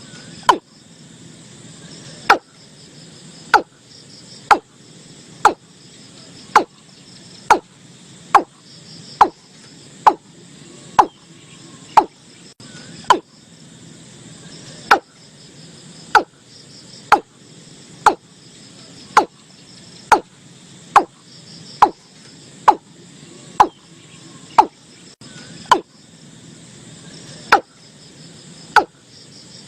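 Watercock calling: short, sharp, loud notes repeated about once a second, over a steady background of insects trilling.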